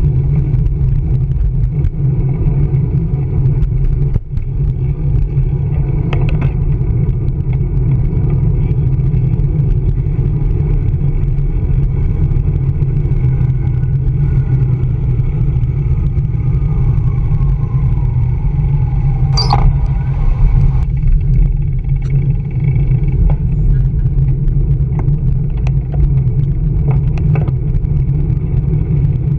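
Steady, loud wind rumble on the bike-mounted camera's microphone while cycling, mixed with city street traffic. About twenty seconds in there is a short, sharp high squeak.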